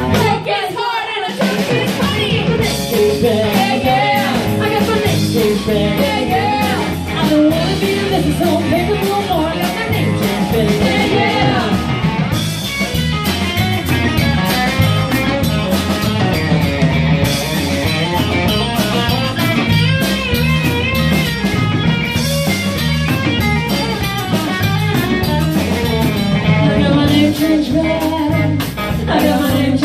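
Live band playing: women singing over a drum kit, electric bass and guitar, with a regular beat.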